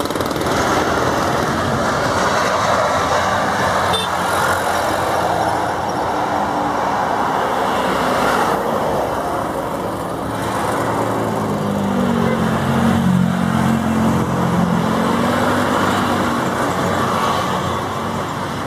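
Airbus A320-family airliner's jet engines rolling out along the runway with ground spoilers raised: a steady rush of engine noise, with a deeper hum swelling about twelve seconds in.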